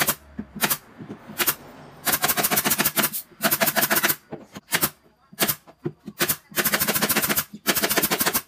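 Pneumatic nail gun fastening plywood cabinet panels: single sharp shots, then several strings of rapid-fire shots about a second long, with single shots in between.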